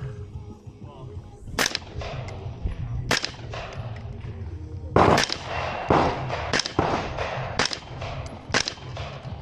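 AR-style rifle fired in single shots, about seven at uneven gaps of one to two seconds; the loudest comes about halfway through.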